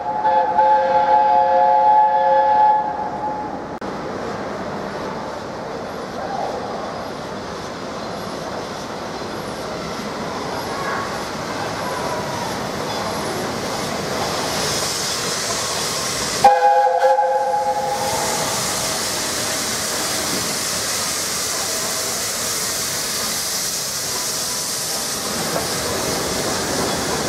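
Steam locomotive 60163 Tornado sounding a three-note chime whistle at the start and again about two-thirds through, then the steady rumble and hiss of the engine and its coaches passing close by through the station.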